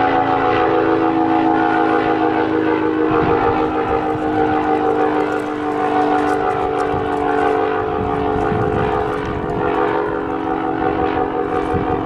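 ACA Penetrator 50 (P-50) outdoor warning siren sounding its steady alert tone: several pitches held level, pulsing in loudness as the rotating head sweeps. Strong wind buffets the microphone, gusting harder from about three seconds in.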